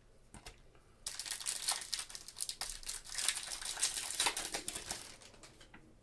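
Foil wrapper of a Panini Flux basketball card pack crinkling as gloved hands tear it open. It starts about a second in and dies away near the end.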